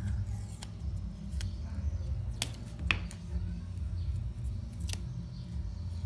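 A handful of sharp clicks and snaps from hands splicing a power cord with electrical tape and wire cutters, over a steady low hum.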